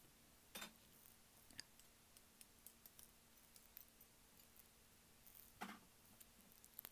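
Near silence with a few faint clicks, one of them a metal spoon set down against the rim of a ceramic bowl.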